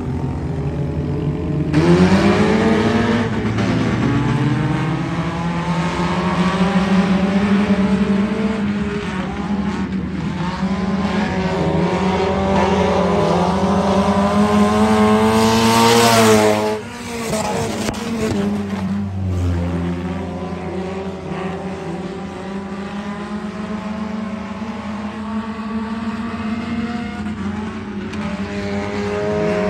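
Pack of stock cars racing on a dirt oval, engines running hard at full throttle. The engine note jumps and rises about two seconds in, holds, drops sharply about sixteen seconds in as the cars lift, then runs on at a lower, steadier level.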